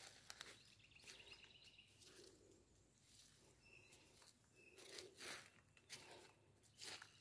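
Faint footsteps on wet leaf litter and mud, a few separate crunching, squelching steps, loudest near the start and again in the last couple of seconds.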